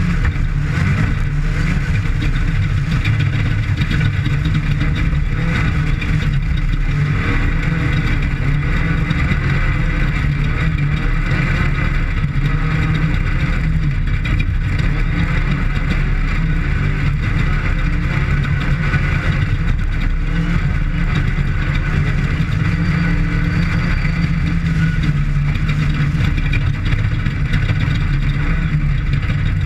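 Off-road desert race vehicle's engine running hard and steadily at speed during a qualifying lap, with a rough, constant drone.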